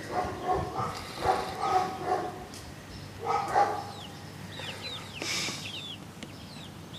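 Young chickens making soft, low, trilling calls, then a quick run of short, high, falling peeps a little past the middle.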